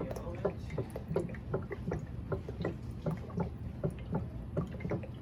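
Olive oil being poured for a vinaigrette: a run of small, irregular drips and splashes, a few a second.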